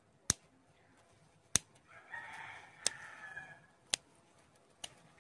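Pruning scissors snipping through the small twigs of a Streblus asper bonsai, five sharp snips about a second apart. A rooster crows in the background about two seconds in, for a second and a half.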